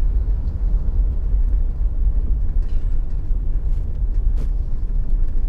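Steady low rumble of a vehicle driving along a road: engine and tyre noise.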